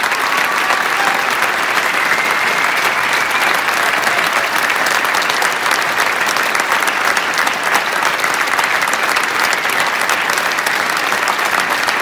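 A large audience applauding: dense, even clapping that holds steady throughout.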